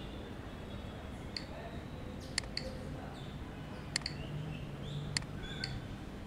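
Computer mouse clicking: about six short, sharp clicks spread over several seconds, two of them in quick succession, over a faint steady hiss.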